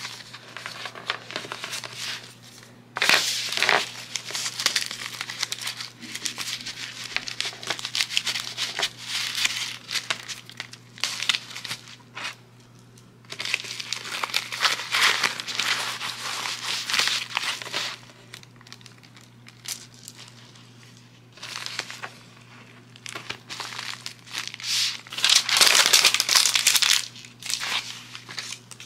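Plastic packaging and paper crinkling in handled bursts as a small order is packed by hand, a holographic plastic baggie and a pink mailer among them; the loudest rustles come about three seconds in and again near the end.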